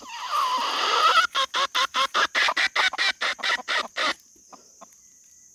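Junglefowl rooster calling loudly: a rising squawk of about a second, then a fast run of about a dozen clucks, some four a second, that stops abruptly after about four seconds.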